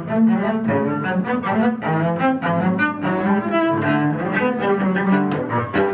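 Bowed string music with the cello to the fore, a quick run of short notes that change several times a second.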